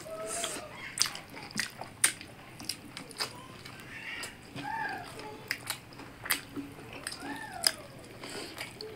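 Eating by hand: rice and curry mixed and squeezed with the fingers on a steel plate, with chewing and many irregular sharp clicks and smacks.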